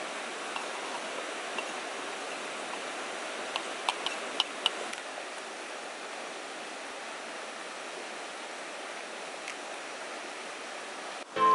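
Steady rushing background noise, with a quick run of about five sharp knife clicks on a wooden cutting board about four seconds in and a few fainter ticks elsewhere. Music starts right at the end.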